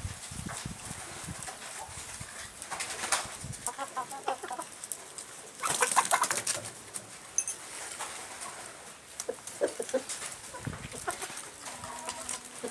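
Chickens clucking and calling in short, repeated bursts among a flock, with scattered sharp clicks.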